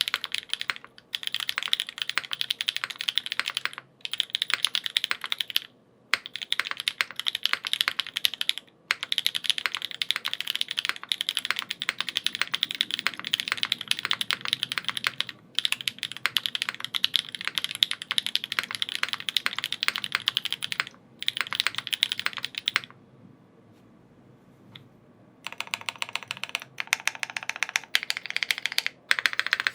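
Typing on a Brick TKL aluminium mechanical keyboard with lubed Gateron X SW Pure Berry linear switches and KKB keycaps: fast runs of key strokes broken by short pauses, with one longer pause of about two seconds about three-quarters of the way through.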